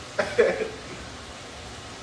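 A brief vocal sound from a person about half a second in, then a low, even background hiss.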